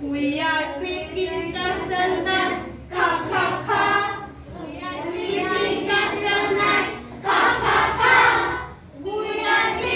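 A group of young children singing together in unison, in phrases a few seconds long with short breaths between them.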